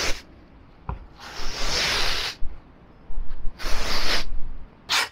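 Old fabric being ripped off a vehicle headliner board, pulled away in long tearing strokes. Three rips, each about a second long, about two seconds apart.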